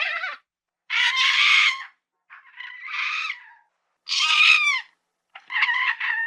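Lemur calls: a series of about five separate cries, each roughly a second long with short silences between, several ending in a falling pitch.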